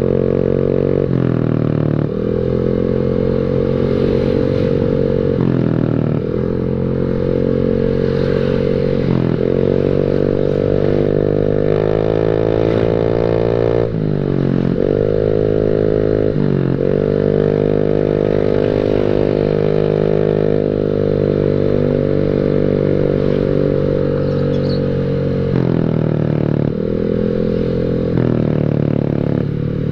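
Honda Beat scooter's engine through an aftermarket WRC 'mber' racing exhaust, a deep loud note while riding under way. The pitch drops as the throttle is shut and climbs again several times.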